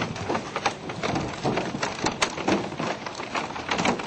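Many quick, irregular splashes and knocks: fish leaping out of the river and smacking onto the water and against the boat.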